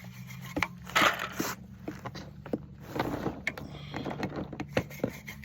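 Irregular scrapes and sharp clicks of something being handled, over a steady low hum.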